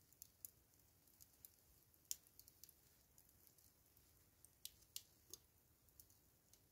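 Faint charcoal fire crackling: about a dozen scattered, sharp little ticks and pops, the loudest about two seconds in.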